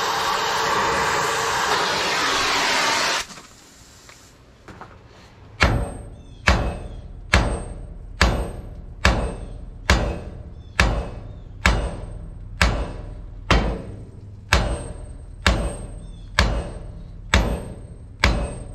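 Cutting torch flame hissing steadily, cutting off about three seconds in. After a pause, a hammer strikes a stuck steel pivot bolt on a dump truck's hoist cylinder about once a second, around fifteen blows, each with a short ring, driving the seized bolt out.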